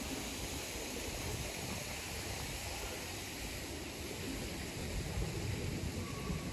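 Steady outdoor town ambience: an even hiss with a low, fluttering rumble of wind on the microphone, gusting a little stronger near the end.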